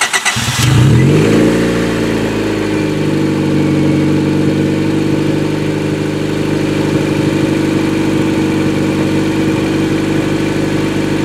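Honda D15B 1.5-litre four-cylinder engine in a Honda Del Sol, cranked on the starter for a moment. It catches about half a second in, flares up in revs and falls back, then settles into a steady, smooth idle (a purr) with no misfire. The exhaust is open after the catalytic converter because the rest has rotted off.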